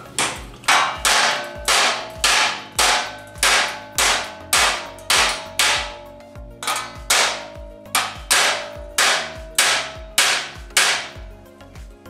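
Steady hammer blows on a torch-heated steel wheel-arch patch panel clamped to a steel form, about two a second, each with a short metallic ring. The hot tucks and folds in the sheet are being hammered flat to shrink the metal. The blows stop near the end.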